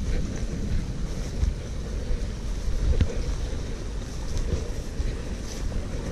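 Wind buffeting the camera's microphone: a steady low rumble, with a few light clicks.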